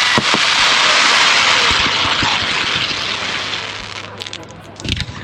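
Fireworks: a few sharp bangs at the start, then a dense crackling hiss from the bursts that fades over about four seconds, and a deep boom near the end.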